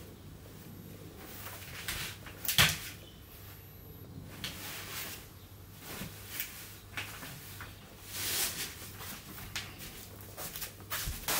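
Clothes rustling as they are packed into mesh laundry nets and put into a plastic laundry basket, with scattered short scrapes and one sharper, louder sound about two and a half seconds in.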